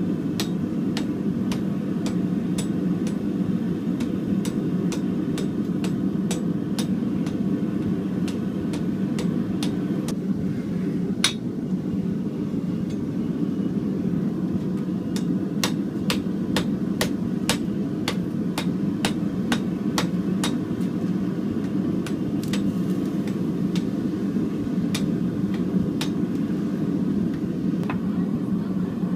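Hand hammer blows on a red-hot billet of chainsaw chain on an anvil, being forge-welded into damascus steel: runs of sharp metallic strikes at about two a second, one especially hard blow partway through, and a pause of a few seconds before more blows. Under the strikes, a gas forge's burner keeps up a steady roar.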